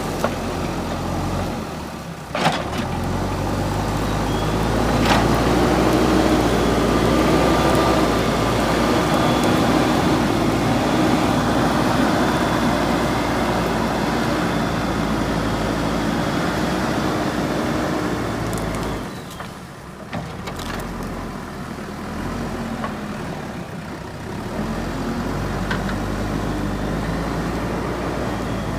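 JCB 3DX backhoe loader's diesel engine running, working harder and louder for most of the stretch before easing off briefly, with a couple of sharp knocks early on.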